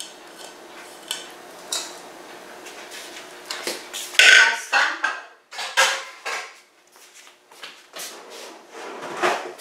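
Kitchen dishes and utensils clattering: a run of separate knocks and clinks as bowls and utensils are handled, the loudest about four seconds in.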